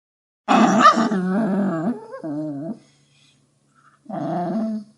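A puppy crying: three whining cries with a wavering pitch. The first and loudest starts about half a second in and lasts about a second and a half, a shorter one follows straight after, and a third comes near the end after a pause.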